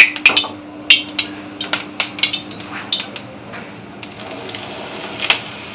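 Steel kadai clanking against the gas stove and the rim of a steel mixing bowl as it is lifted off the burner and tipped to pour out hot oil: a quick run of sharp metal knocks in the first few seconds, then one more near the end.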